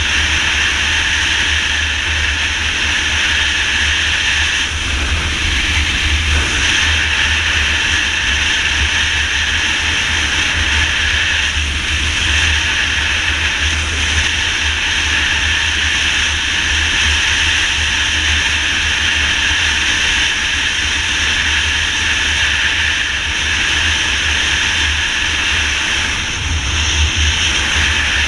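Motorcycle riding at highway speed: steady wind rush buffeting the microphone, with the engine running underneath at constant speed.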